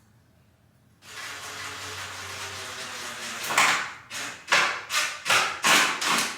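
Cordless drill driving screws into wood: a steady run of the drill at first, then a series of short, loud bursts about every half second or so from midway on.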